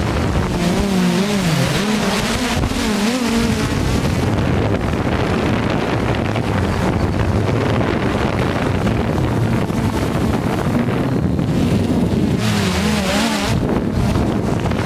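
Quadcopter drone's motors and propellers heard through its onboard camera microphone: a steady loud whirring with wind rush. The motor pitch wavers up and down near the start and again near the end.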